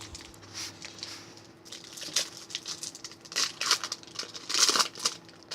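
Foil trading-card pack wrapper being torn open and crinkled, a run of crackly rustles.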